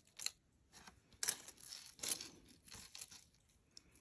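Packaging crinkling and rustling a few times in short scratchy spells as a piece of jewelry is pulled out of it.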